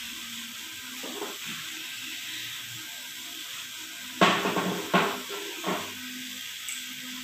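Metal engine parts being handled: three clattering knocks, the first and loudest about four seconds in and two smaller ones within the next two seconds, over a steady hiss.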